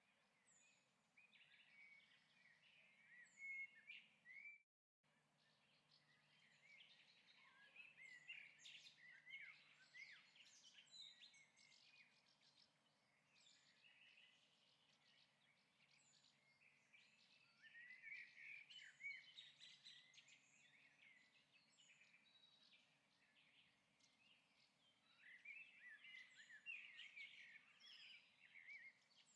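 Faint birds chirping and twittering in bursts, with a brief cut to dead silence about five seconds in.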